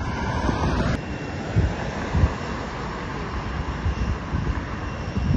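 Jet aircraft engines running with a steady rush and a faint high whine, with wind buffeting the microphone in low thumps.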